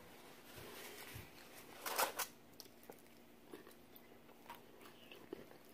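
Close-up eating sounds: bites into crispy fried chicken and chewing, with small clicks and smacks and one louder crunch about two seconds in.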